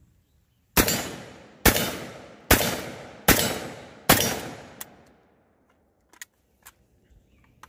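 Kalashnikov USA Komrad 12 semi-automatic 12-gauge shotgun firing five quick rounds, about one every 0.8 seconds, each shot echoing and dying away, followed by a few faint clicks.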